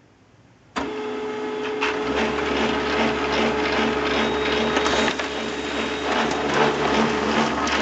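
HP LaserJet 2400-series laser printer starting up abruptly about a second in and running steadily as it prints a page, with a constant tone over the mechanism's noise and no clunking, its three fuser drive gears freshly replaced.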